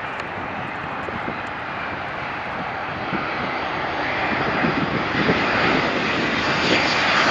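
Airliner engines on landing approach, a steady roar growing gradually louder as the aircraft comes nearer.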